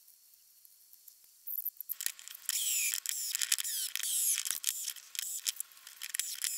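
Small cordless drill-driver running in short spurts, starting about two seconds in, its motor whine rising and falling in pitch as it drives bolts to clamp a mould shut.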